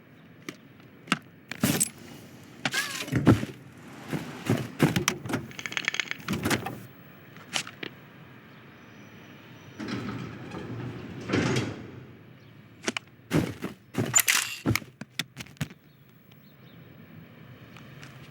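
Animated-film sound effects with no dialogue or score: a string of short knocks, clicks and clattering rattles, with a longer scraping, rustling sound a little past the middle.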